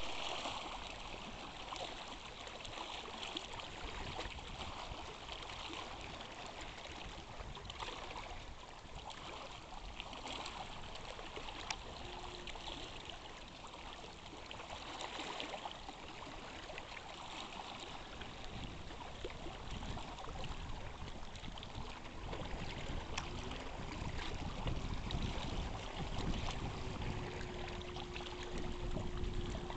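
Choppy lake water lapping and splashing against a rocky shore, an even rushing wash with a low rumble that grows stronger in the second half. A faint steady hum comes in late.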